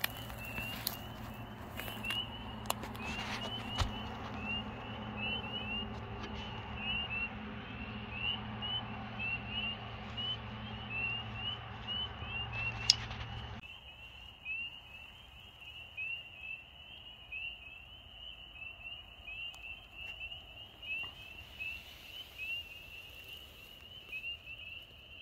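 A night chorus of small frogs: many short, high chirps at one pitch, about three a second and overlapping. Low rumbling handling noise and a few knocks sit under it until just after halfway, where they stop abruptly.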